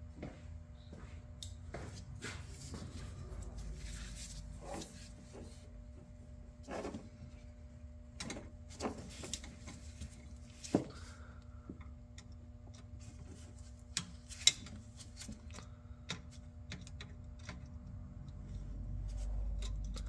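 Scattered small clicks and clinks of hand tools being handled, with a few sharper knocks, over a faint steady hum.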